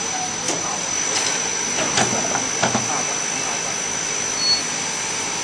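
Spiral paper core winding machine running: a steady mechanical whir with a constant high-pitched whine. A few clicks and knocks come about two to three seconds in, and a brief high tone sounds near the end.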